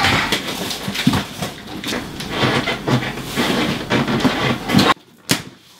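A full cardboard delivery box being carried and handled, with irregular knocks, scuffs and rustling as it is moved and lifted. The noise breaks off suddenly near the end, followed by one sharp click.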